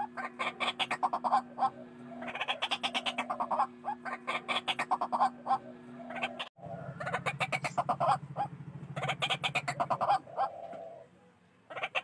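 White-breasted waterhen calling loudly and repeatedly: bouts of rapid, pulsed croaking notes, each a second or two long, with short gaps between. A steady low hum sits under the calls until a sudden break about halfway through, after which a lower buzz runs under them.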